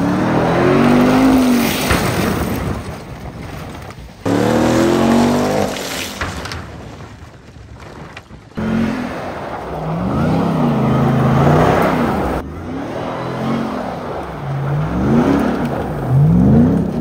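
Ram 1500 TRX's supercharged V8 revving hard, its pitch rising and falling again and again as the truck slides on loose gravel, over the hiss of spinning tyres throwing gravel.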